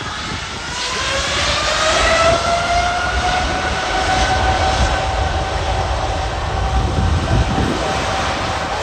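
Jet airliner engines spooling up: a whine rising in pitch over the first few seconds and then holding steady over a loud, constant jet roar.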